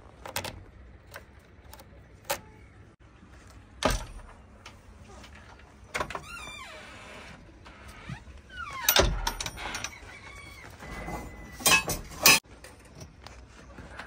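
Key clicking in the lock of a JCB 3DX backhoe loader's cab door, then the door latch and door clunking open and a run of knocks and thumps as someone climbs up into the cab, the heaviest thump about nine seconds in and a cluster of hard knocks near the end. A few short squeaks come in between.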